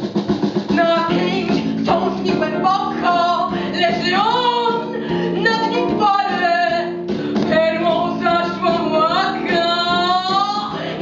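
Music with a high, woman's voice singing a wavering melody over a steady accompaniment.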